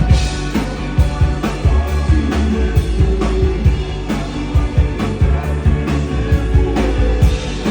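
Live band playing a slow rock song: drums on a slow, steady beat under bass and guitar.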